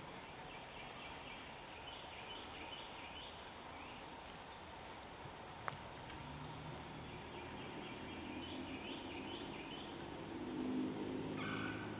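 Steady high-pitched drone of an insect chorus, swelling upward briefly about five times. A faint low hum joins in about halfway through.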